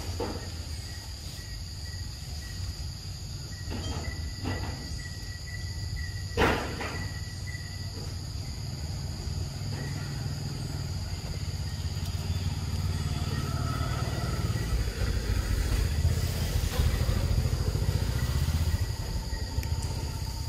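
Outdoor ambience: a steady high-pitched insect drone over a low rumble that swells through the second half, with one sharp click about six seconds in.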